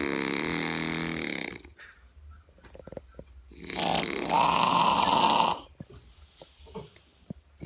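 A sleeping man snoring heavily: two long, loud snores of about two seconds each, a few seconds apart, with quiet breathing between them.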